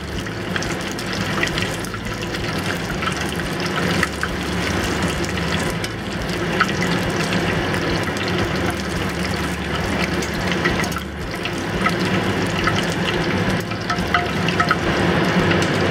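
Battered prawns deep-frying in hot peanut oil: a steady sizzling and bubbling of the oil.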